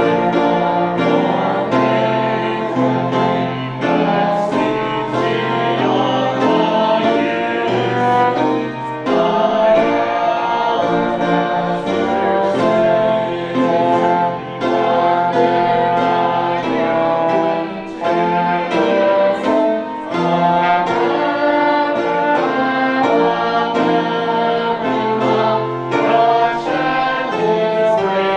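Congregation singing a hymn with instrumental accompaniment, the notes held and changing every second or so.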